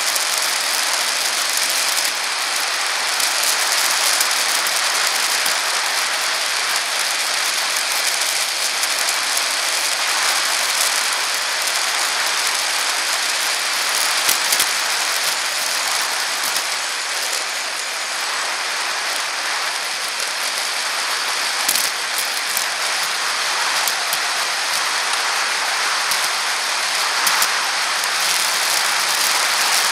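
Steady hiss of a bicycle riding along a paved path, picked up by a camera mounted on the bike: tyre and wind noise, with a few short clicks and rattles from bumps.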